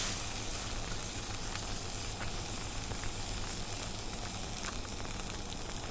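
Meat searing on a hot stone slab: a steady sizzle with frequent small crackles and pops.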